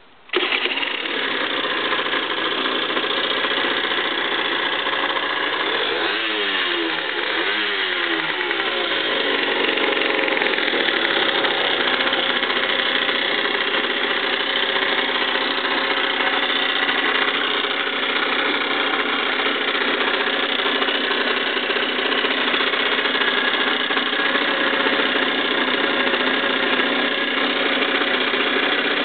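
A small Yamaha sport motorcycle's engine starts about half a second in and then runs at a steady idle. Its note rises and falls twice between about six and nine seconds, as the throttle is blipped.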